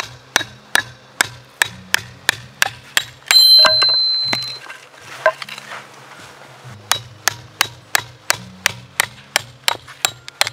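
Background music with a steady clicking beat and a bass line. About three seconds in there is one loud knock with a ringing tail, from firewood being split at a splitting stand.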